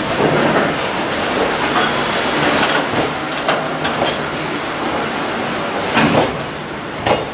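Container wagons of a departing JR Freight train rolling past close by: a steady rumble of wheels on rail, with clacks over the rail joints and a few sharp clanks, the loudest about six seconds in.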